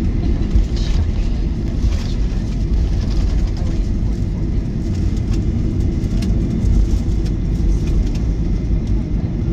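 Cabin noise of a Boeing 737-900ER taxiing: a steady low rumble from its idling CFM56 turbofans and the wheels rolling on the concrete taxiway, with a few faint clicks.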